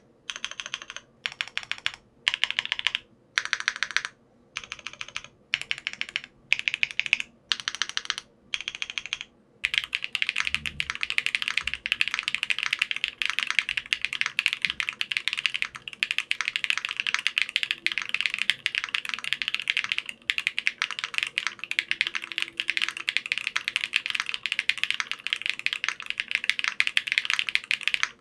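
Mechanical keyboard switches pressed in short separate bursts of rapid keystrokes, about one burst a second, then from about nine seconds in continuous fast typing on a keyboard with unlubed Keygeek RAW switches, an aluminium plate, full foam and ABS double-shot keycaps.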